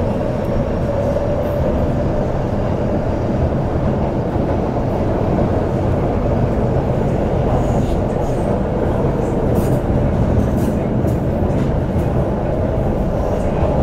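CNR Changchun-built MTR C-train electric multiple unit (IGBT-VVVF traction) running steadily, heard from inside a motor car. The sound is an even rumble of wheels and running gear, with a faint steady tone in the first couple of seconds.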